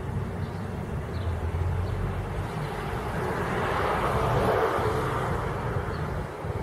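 A distant engine passing, swelling to its loudest about four seconds in and then fading, over a low outdoor rumble.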